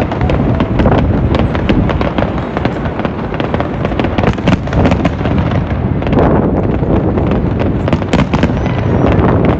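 Aerial firework shells bursting in quick succession: a continuous run of loud bangs and crackling, several reports a second.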